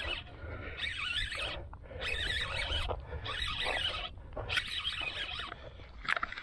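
A spinning reel being cranked in spurts of about a second, six in a row with short pauses, as line is wound in on a hooked fish.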